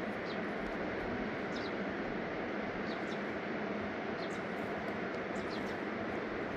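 Fast-flowing river water rushing in a steady roar, with a few faint high chirps over it.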